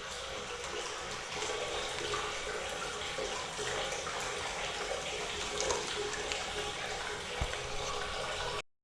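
Hot-spring water pouring steadily into a bath, a constant rushing splash that cuts off suddenly near the end.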